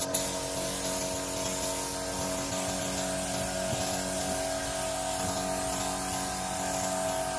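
Air spray gun hissing steadily as it sprays clear coat onto a motorcycle fuel tank, with a steady mechanical hum underneath.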